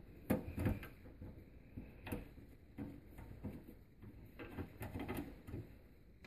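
Phillips screwdriver loosening the screws that hold a case fan to a desktop computer's sheet-steel case: faint, irregular metal clicks and scrapes.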